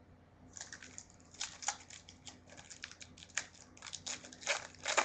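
A foil Topps Finest football card pack being torn open and crinkled by hand: a run of irregular crackles and rips starting about half a second in, loudest near the end.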